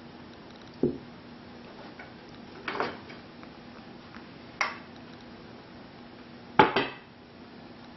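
Four separate knocks and clinks of tableware: a drinking glass set down on the table, a knife and fork picked up, and a plate set down on a wooden cutting board. The plate going down near the end is the loudest.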